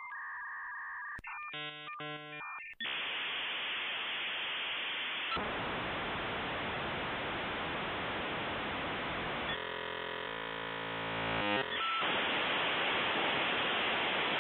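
A dial-up modem handshake over a telephone-bandwidth line: a burst of warbling multi-tone chirps, then a loud, steady hiss of scrambled data. The hiss is broken by a second stretch of stacked tones about ten seconds in and cuts off abruptly at the end.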